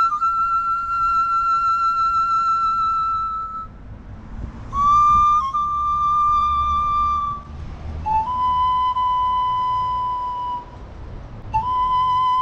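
A flute-like wind instrument played by a street musician: a slow melody of long, high held notes with a slight vibrato, each lasting a few seconds with short breaks between them. A faint low rumble sits underneath.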